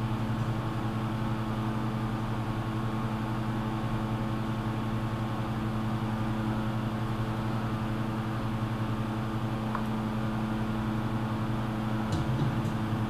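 Steady electric machine hum at a constant pitch, like a fan or motor running continuously.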